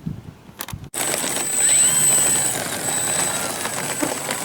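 Gusty wind buffeting the microphone, with the high, steady whine of the E-flite PT-17's electric motor and propeller running and sliding up and down in pitch. It starts after a brief dropout about a second in.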